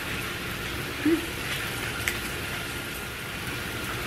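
Steaks sizzling steadily on a gas grill, with a brief pitched blip about a second in and a faint click near two seconds.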